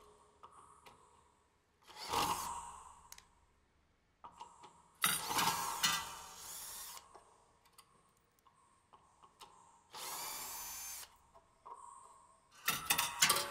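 Handheld power drill run in three short bursts, the loudest about five seconds in and a steady one-second run near the end, with faint metallic clicks between them.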